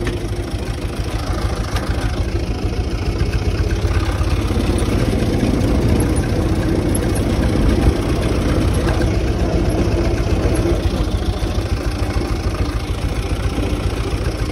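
UTB 445 tractor's diesel engine running steadily, a little louder in the middle of the stretch.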